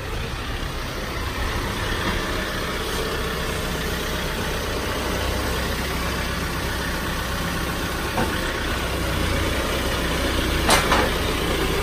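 A vehicle engine running steadily at idle, with a sharp clank near the end.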